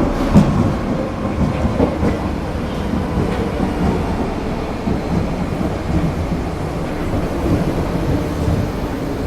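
Paris Metro train running, a steady low rumble with rattles and clunks and a faint steady whine above it.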